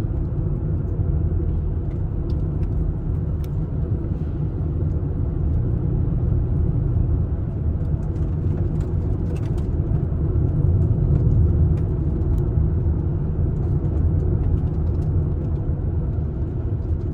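Steady low rumble of a campervan driving along an open road: engine and tyre noise heard from inside the cab.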